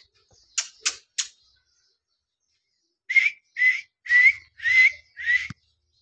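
Alexandrine parakeet calling: five short whistle-like notes, about two a second, each with a slight upward lilt. Three short hissy sounds come about a second in, before the calls.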